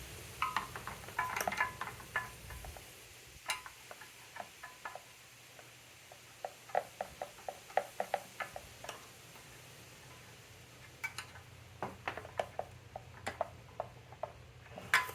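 Scattered light clicks and taps of small parts and hand tools being handled, in three short flurries.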